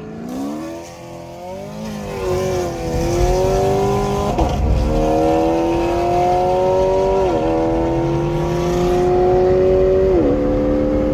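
Car engine accelerating hard through the gears, heard from inside the cabin: its pitch climbs steadily and drops sharply at each of three upshifts, about three seconds apart, then holds steady near the end.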